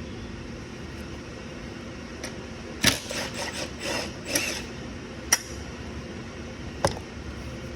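Scattered clinks and knocks of tools and engine parts being handled during a small-engine teardown, over a steady background hum. A short cluster of them falls around the middle, with single knocks later on.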